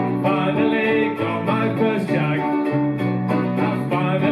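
Live band playing a waltz on strummed acoustic guitars, with singing.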